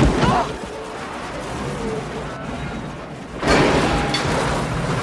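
Action-film soundtrack: music score mixed with crash effects. A brief squeal at the start, then about three and a half seconds in a loud crash and grinding as an overturned vehicle slides along the pavement, throwing sparks.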